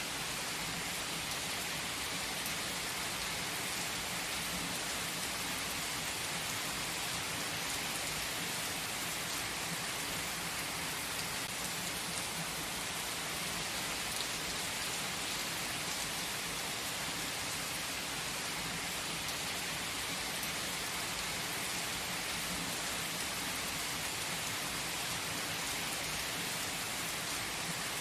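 Steady rain falling: an even hiss with faint scattered drop ticks, unchanging in level.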